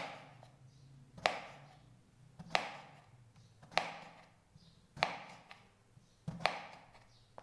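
Kitchen knife slicing a peeled raw potato into thick rounds, each stroke ending in a sharp knock on a wooden cutting board: six even cuts, a little over a second apart.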